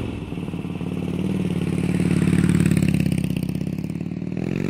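Motorcycle engine running with a rapid, even pulsing beat, then revving up near the end, its pitch rising.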